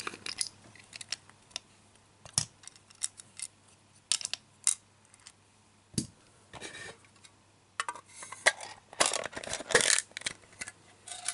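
Scattered small clicks and knocks of a hard plastic display base and clear plastic display case being handled, starting with a small screwdriver working at a screw in the base. The clatter comes more often and louder late on, while the clear cover is handled.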